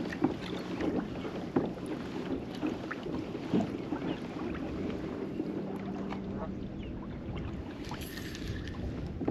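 Light knocks and clicks of fishing gear handled in a small boat, most of them in the first few seconds. A steady low hum runs under them and cuts off about seven seconds in.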